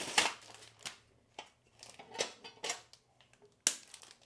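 Rack parts and packaging being handled during unboxing: about six short, separate clicks and rustles with quiet gaps between them.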